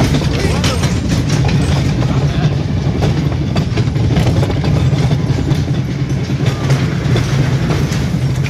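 A 1952 Allan Herschell kiddie coaster car running on its steel track, heard from on board: a steady rumble of the wheels with a quick clatter over the rail joints.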